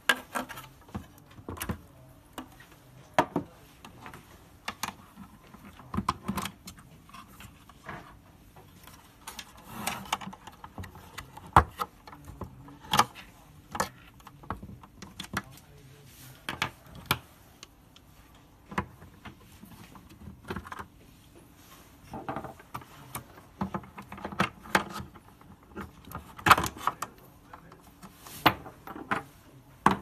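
Irregular clicks, knocks and rattles of hands handling a tankless water heater's plastic casing and innards, with metal hand tools and brass fittings set down on a wooden desk.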